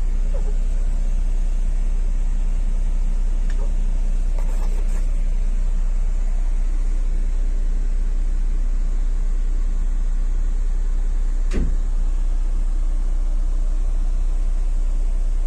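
Steady low rumble of a moving sleeper bus, with a single short knock about eleven and a half seconds in.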